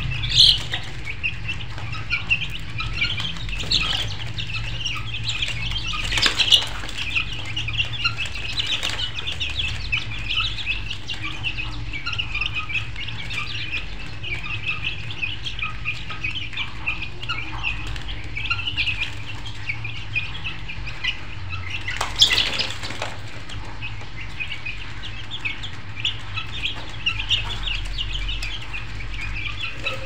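Many birds chirping densely and without pause over a low steady hum. Three louder brief bursts come through: one near the start, one about six seconds in and one about twenty-two seconds in.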